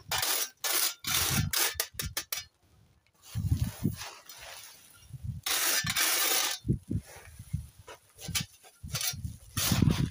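Steel mason's trowel scraping and scooping small white gravel chips, with irregular gritty scrapes of stone and some low thuds from handling.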